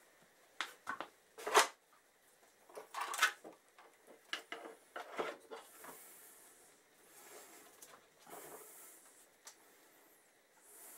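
Scattered light clicks and knocks of gloved hands handling a motorcycle radiator, its hoses and the frame around it, the sharpest about one and a half seconds in. Soft rustling follows in the second half.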